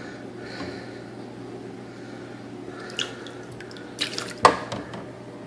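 Water dripping and splashing around the copper-coil rig in its water bath, with sharp knocks about three seconds in and again about four seconds in, the loudest a little after.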